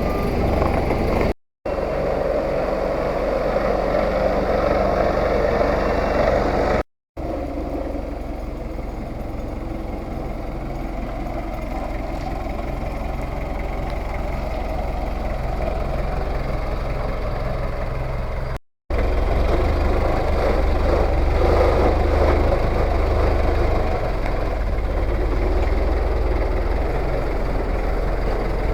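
Engine of a three-wheeled farm tractor running steadily, broken by three brief silent cuts.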